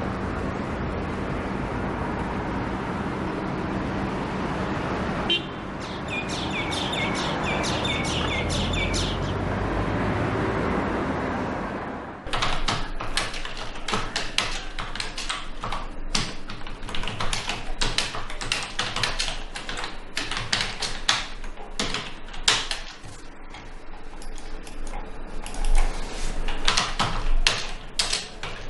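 Typing on a computer keyboard: fast, uneven key clicks with short pauses, starting suddenly about twelve seconds in. Before that, a steady outdoor rush with a run of short, high bird chirps from about six to nine seconds in.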